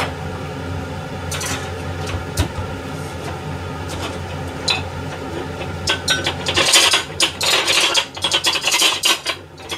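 Kitchen handling noises over a steady low hum: a few light clicks, then about six seconds in, several seconds of loud rubbing and scraping.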